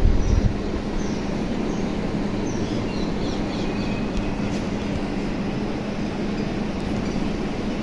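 Steady outdoor background rumble with a constant low hum, and a few faint, short high bird chirps in the first half.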